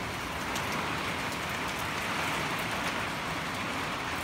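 Heavy rain pouring steadily: an even hiss with a few scattered sharp drop taps.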